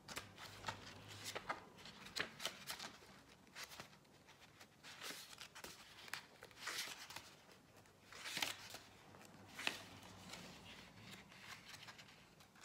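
Pages of a small paperback guidebook being thumbed and flipped by hand: faint paper flicks and rustles at an irregular pace, with a few louder flicks.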